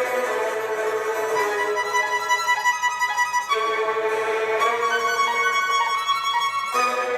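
Violin music played back through the ASUS ZenPad 8.0 Z380KL tablet's speakers in a sound test, long held notes shifting in pitch, with a new phrase starting about halfway through and again near the end.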